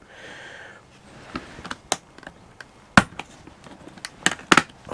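Short, sharp clicks and taps of small metal reciprocating saw blades being handled in a hard plastic blade case as one is picked out, with the loudest click about three seconds in.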